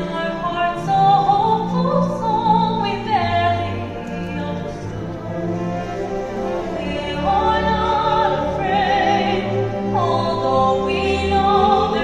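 A solo singer sings a slow melody in long held phrases with vibrato, over sustained orchestral chords.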